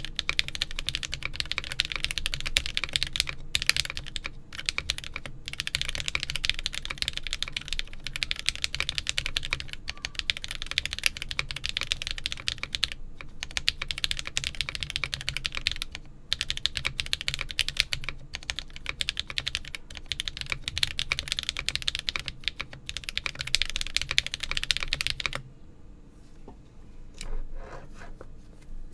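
Fast, continuous typing on a Geonworks Frog TKL mechanical keyboard with lubed Akko V3 Cream Yellow linear switches, an aluminium plate, no case or plate foam, and GMK cherry-profile keycaps. The typing stops about 25 seconds in, leaving a few scattered keystrokes near the end.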